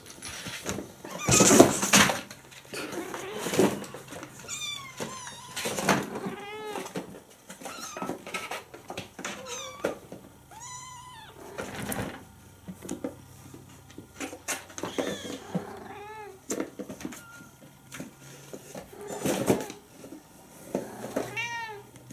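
Mother cat and her six-week-old kittens meowing back and forth: many short calls of differing pitch, some high and thin, some lower, each rising and falling. Two louder bursts of noise, about a second and a half in and again near the end, stand out.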